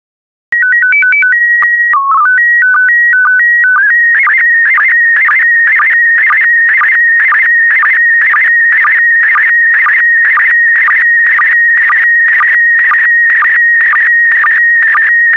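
Slow-scan TV (SSTV) signal in PD120 mode. After about half a second of silence, a header of short stepped beeping tones plays, then a held tone with a brief low dip. From about four seconds in, the image data follows as a continuous warbling whistle, broken by short sync dips about twice a second as each pair of picture lines is sent.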